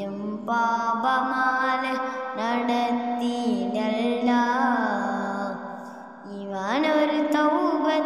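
Background music: a slow melody of long held notes that slide from one pitch to the next, with a brief lull about six seconds in.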